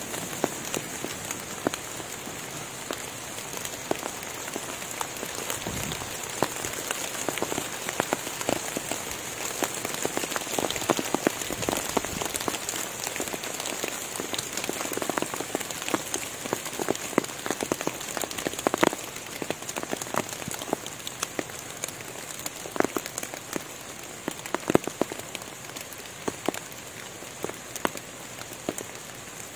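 Rain falling on forest foliage and leaf litter: a steady patter with many separate drops tapping close by, busiest around the middle. A steady high-pitched whine runs along under it.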